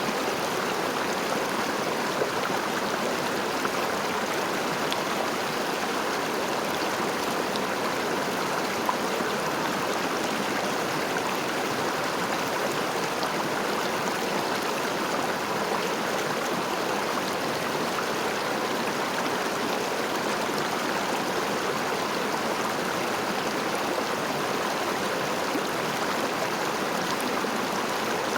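River water flowing and rushing steadily, an even, unbroken sound that neither rises nor falls.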